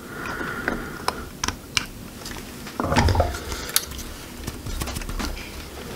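Small, scattered clicks and taps of fingers and small metal parts being handled on the circuit board inside the amplifier chassis, with a louder bump about three seconds in.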